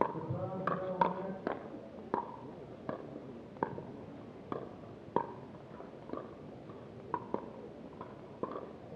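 Pickleball paddles striking a hard plastic ball back and forth in a net rally: about a dozen sharp pops, roughly one a second, each with a brief hollow ring.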